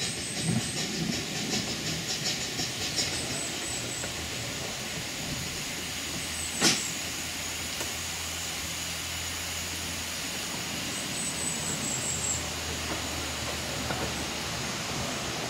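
Small narrow-gauge steam locomotive, Sea Lion, hissing steam as it moves slowly along the line. There is one sharp clank about seven seconds in and a low steady drone through the middle.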